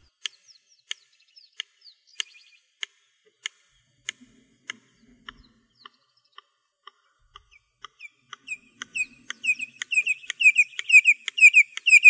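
Red-crested korhaan calling: a run of sharp, well-spaced clicks that gradually speed up, then from about eight seconds in a series of piercing, falling whistles, about three a second, growing louder. This is the species' typical display call.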